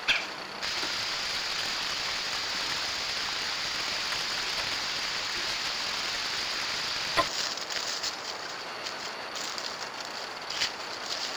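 Steady hiss of rain falling through swamp woods, picked up by a trail camera, cutting off abruptly about seven seconds in. After that it is quieter, with a few soft rustles and ticks in dry leaf litter.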